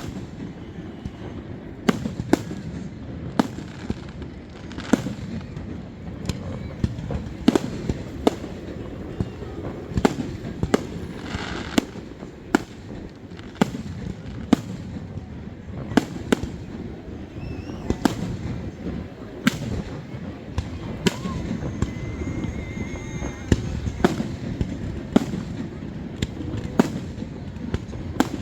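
Aerial fireworks bursting in a continuous barrage: sharp bangs about once or twice a second over a steady low rumble of more distant explosions.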